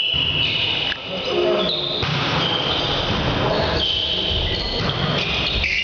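Indoor volleyball game in a sports hall: repeated short, high squeaks of sneakers on the court floor over a steady hum of players moving and calling.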